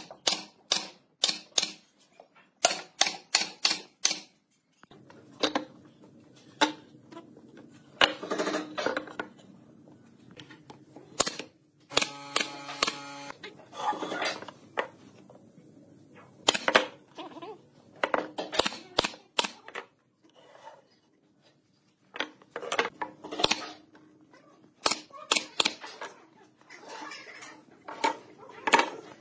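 Pneumatic nailer firing into pine boards: sharp snaps in quick runs of several shots, the first runs right at the start and about three seconds in, with more scattered through the rest, and the rustle and knock of boards being handled in between. A short humming tone sounds briefly about twelve seconds in.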